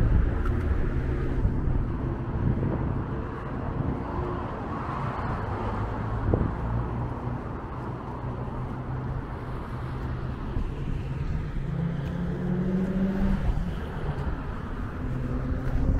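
Road traffic: the steady rumble of passing cars' engines and tyres, loudest at the start, with one engine's hum standing out near the end.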